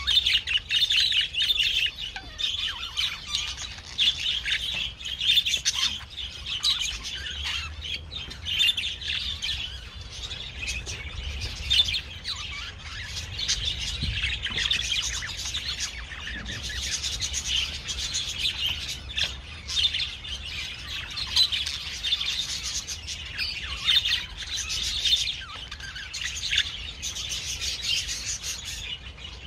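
A flock of small parrots chirping in a dense, continuous chorus of high, rapid chirps.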